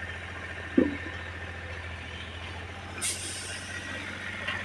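An engine running steadily with a low hum on a building site, with one loud knock about a second in and a brief hiss near three seconds.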